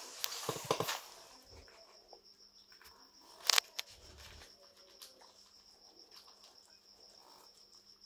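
Guinea pigs faintly rustling and nibbling green grass in a wire cage, under a steady high-pitched insect-like trill. A few clicks come in the first second, and one sharp click about three and a half seconds in is the loudest sound.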